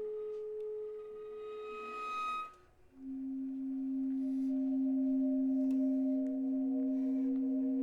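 Viola and baritone saxophone playing long held tones. One sustained note stops about two and a half seconds in, and after a brief gap a lower held note begins and carries on.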